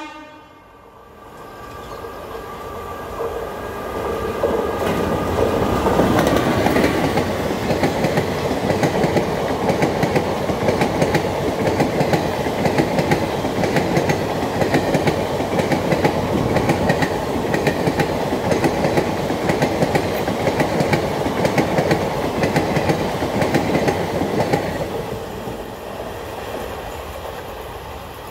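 An Indian Railways express of ICF coaches hauled by a WAP4 electric locomotive passing at speed, its wheels clattering rhythmically over the rail joints, building up over the first few seconds and fading as the rake draws away near the end. A horn note dies away in the first couple of seconds.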